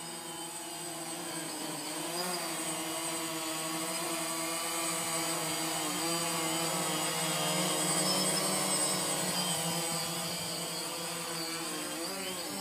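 DJI Phantom quadcopter's four propellers whirring in flight, a steady buzzing whine whose pitch wobbles briefly a few times as the motors change speed. It grows louder toward the middle, then eases off.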